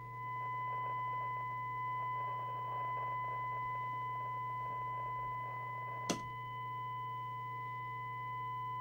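Steady test tone with overtones and a low hum beneath, from a signal generator received by a Harrier CBX FM CB radio and played through its speaker: distorted and awful, the sign of a badly misaligned receive detector. A single sharp click about six seconds in.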